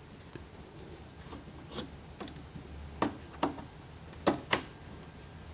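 Sharp plastic-and-metal clicks of a speaker cable plug being handled and seated in an amplifier's output socket: a few light ticks, then four louder clicks in two close pairs in the second half, over a faint low hum.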